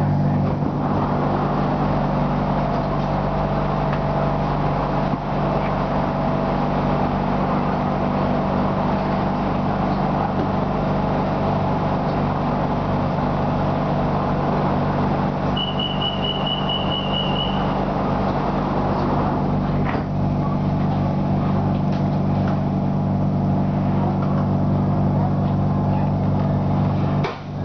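Steady hum of a BTS Skytrain car standing at a station, its air-conditioning and electrical equipment running. A little past the middle comes a rapid string of high beeps lasting about two seconds, the door-closing warning.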